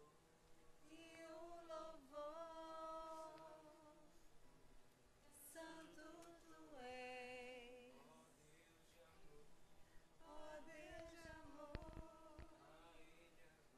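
A woman singing without accompaniment in slow, held notes, with pauses between phrases. A couple of low thumps come near the end.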